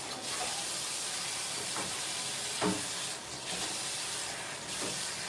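Kitchen tap running into a steel sink, a steady hiss of water, while a flatbread is wetted under it. A single knock sounds about two and a half seconds in.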